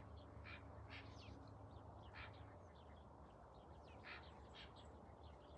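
Faint, scattered quacking of distant ducks: many short calls, a few slightly louder ones about two seconds in and again near four seconds.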